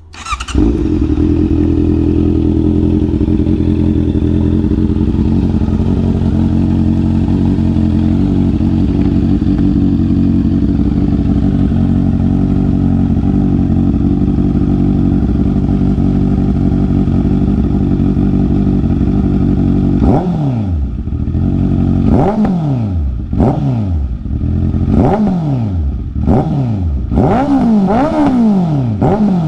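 Honda CB650R's inline-four engine running through an aftermarket R11 full exhaust, idling steadily for about twenty seconds. After that it is revved in a series of quick throttle blips, each rising and falling in pitch.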